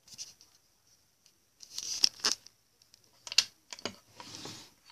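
A few light clicks and taps, scattered unevenly, with a soft rustle about four seconds in, like small objects being handled.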